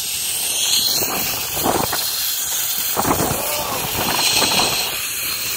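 Zipline trolley running along the steel cable with a steady high hiss, with wind gusting over the microphone in surges about a second in and again from about three seconds in.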